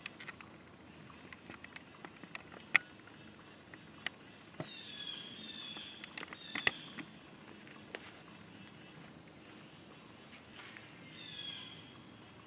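White-tailed buck's hooves crunching dry fallen leaves and twigs in slow, scattered steps, with a sharp snap about three seconds in. Over it runs a steady high trill of insects, and a few short falling chirps come and go.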